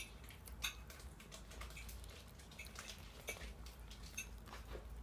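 A dog chewing and smacking on spaghetti: faint, irregular wet clicks and smacks.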